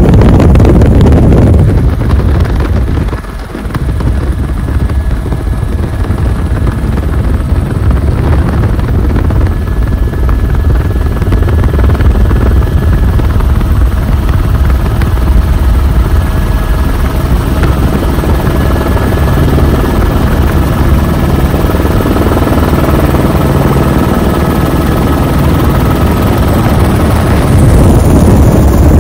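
Helicopter in flight: the steady rumble of its rotor and engine, with a brief dip in loudness about three seconds in.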